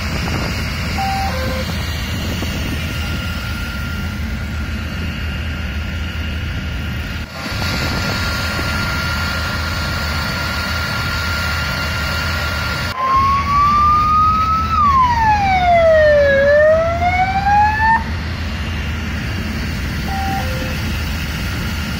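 Emergency vehicle siren sounding one slow wail over a steady low engine rumble: the pitch rises, sweeps down for about two seconds, climbs again and cuts off suddenly after about five seconds.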